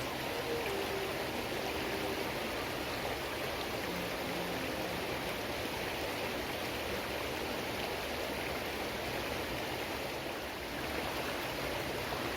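Steady rushing of running water, with a few faint music notes in the first seconds.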